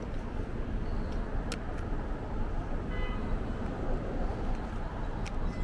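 City street traffic with a steady low rumble, heard from a moving bicycle, with a few small clicks and a short faint beep about three seconds in.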